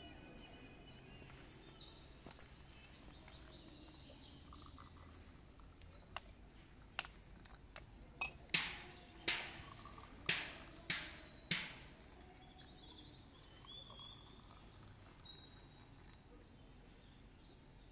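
Glass and metal clinking on a serving tray as small tea glasses and a metal teapot are handled: about eight sharp clinks over several seconds in the middle, with birds chirping faintly in the background.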